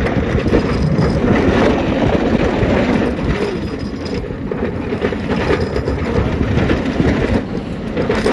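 Steel roller coaster train (the Superman Krypton Coaster, a B&M floorless coaster) running through its course at speed, heard from the back row: a loud, steady rumble of the wheels on the track.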